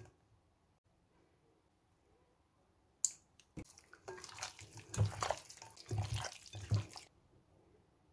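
Wet squelching as a hand works Greek yogurt marinade into raw chicken pieces in a glass bowl, lasting about three seconds with a few soft thuds, after a sharp click a moment earlier.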